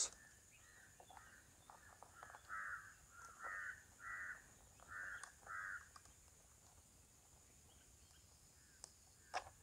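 Near silence, with a bird calling faintly: a run of about five short calls a couple of seconds in.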